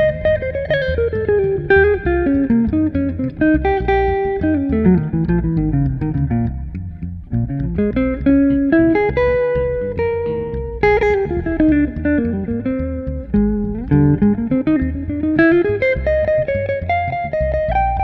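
Instrumental duo of hollow-body electric guitar and electric bass, plucked. Quick melodic runs sweep down and back up in pitch several times over a steady low bass part.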